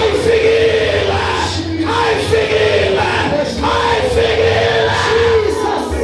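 Worship in a church: voices singing and chanting together over music with a steady low bass.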